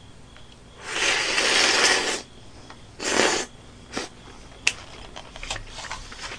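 Eating with chopsticks from a plastic takeout salad tray: a long crackling rustle about a second in and a shorter one about three seconds in, then a run of small clicks from chopsticks and the plastic tray.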